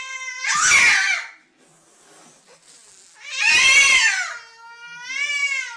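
Domestic cat meowing. A long, steady meow runs into a loud, harsh yowl about half a second in. A second loud, harsh yowl comes around three and a half seconds, followed by a wavering meow near the end.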